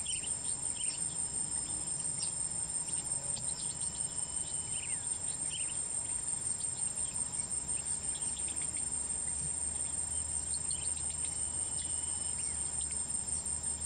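A steady chorus of insects trilling high and unbroken, with scattered short bird chirps over it and, twice, a drawn-out level whistle.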